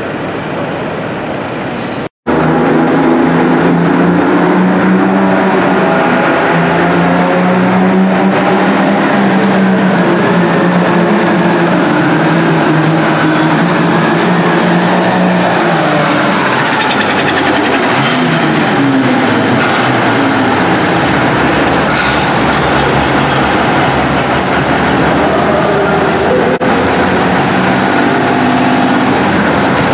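A super stock pulling tractor's engine runs at full power through a pull, with a high whistle over it for several seconds. About two-thirds of the way through, the revs fall away and the engine settles to a lower running sound. A quieter tractor engine is heard for the first couple of seconds.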